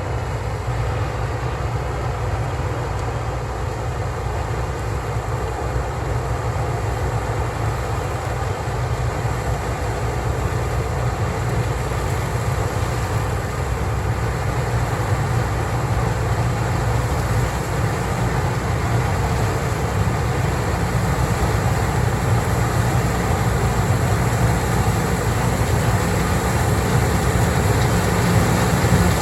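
Combine harvester running steadily under load while harvesting corn: a continuous deep machine drone with a broad rushing noise over it, growing slightly louder.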